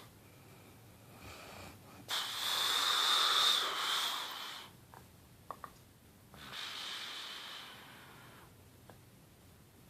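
A sleeper's snoring breaths, hissing with a high whistle in them: a long loud one about two seconds in and a weaker one about six and a half seconds in, with two small clicks between.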